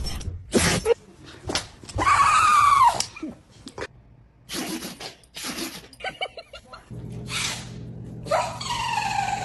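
A string of sneezes, one after another: short sharp bursts about a second apart, two longer pitched cries that fall in pitch into the sneeze, and a quick stutter of small sneezy pulses about six seconds in.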